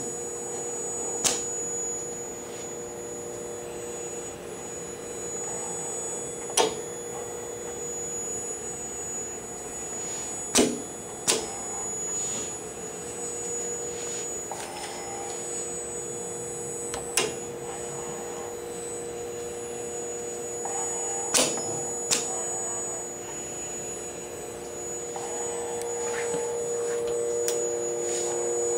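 Fanuc LR Mate robot arm running: a steady machine hum made of two held tones, broken by about seven sharp clicks at irregular intervals. The hum grows louder over the last few seconds.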